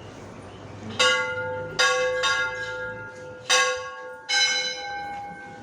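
Hindu temple bells struck five times at uneven intervals, each clang ringing on with a bright metallic decay before the next.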